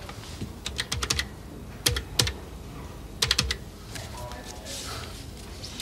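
Push-button desk telephone being handled and its keys pressed: three quick clusters of sharp plastic clicks.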